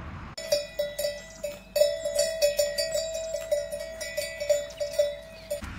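A bell on a grazing cow clanking irregularly, a few strikes a second, each strike ringing on. The clanking starts abruptly just after the beginning and cuts off shortly before the end.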